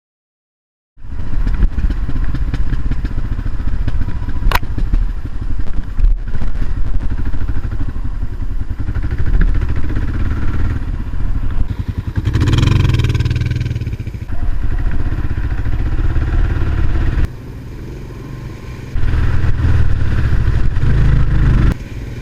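Single-cylinder engine of a 2001 Kawasaki KLR650 dual-sport motorcycle running under way, the throttle rising and easing several times. It starts about a second in. There is a sharp click about four and a half seconds in, and the sound drops back for a couple of seconds near the end before coming up again.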